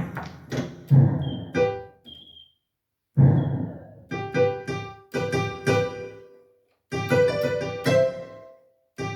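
Yamaha PSR-530 electronic keyboard playing short phrases of notes in one of its preset voices, each phrase breaking off into a brief silence, as its built-in sounds are tried out.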